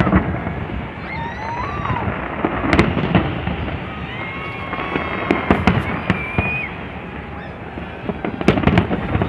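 Large fireworks display going off: a constant crackle broken by sharp bangs, which come thickest about three seconds in, around five and a half seconds, and near the end.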